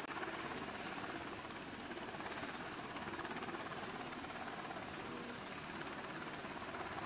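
Helicopter running: a steady, rapid flutter of rotor and engine noise.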